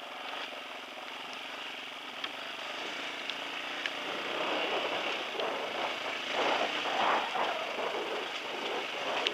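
Dirt bike riding down a wet dirt track: the engine running under a rush of wind on the microphone, growing louder about halfway through. A few faint clicks sound along the way.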